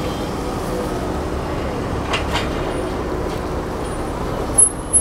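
Steady road traffic noise from a busy street, with two faint clicks a little over two seconds in and a couple of short, loud, sharp sounds near the end.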